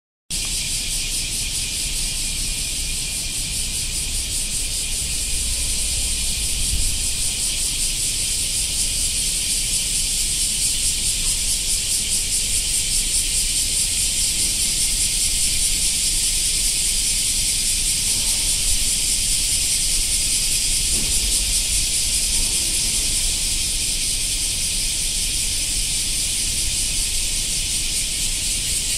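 A steady, even hiss, mostly high in pitch, with a faint low rumble beneath it; it holds unchanged throughout.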